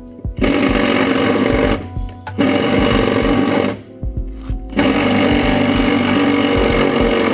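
Impact wrench hammering in three long bursts, the last the longest, working at a stubborn seat-mounting bolt until it gives.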